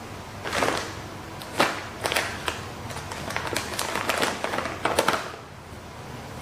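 Paper tissue rustling and crinkling in hand, a string of short crackles with one sharp tap about one and a half seconds in, stopping about five seconds in.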